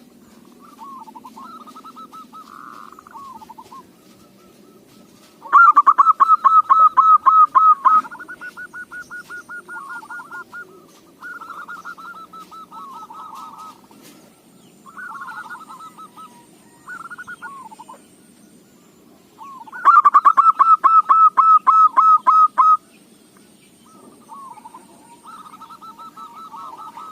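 Zebra doves (perkutut) cooing in repeated short rolling phrases. Two louder runs of rapid notes come about five seconds in and again about twenty seconds in.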